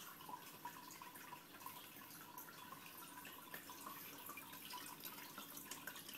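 Faint aquarium water sounds: steady trickling with many small, irregular drips and bubble pops at the water's surface.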